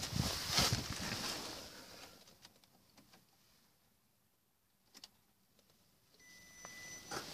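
Rustling and handling noise inside an Audi A4 B5's cabin that dies away, a couple of soft clicks, then, as the ignition comes on about six seconds in, a faint, steady high-pitched whine from the 1.6 ADP engine's throttle body. The throttle body makes this noise at every key turn, and it appeared only after the throttle body was cleaned.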